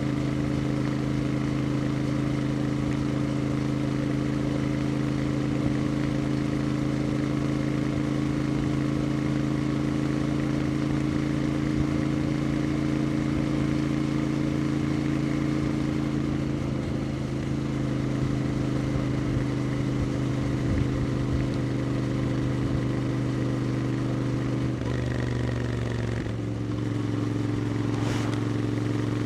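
Royal Enfield Interceptor 650's parallel-twin engine and exhaust running at a steady cruise. The engine note holds one pitch for most of the stretch, then shifts briefly near the end before settling again.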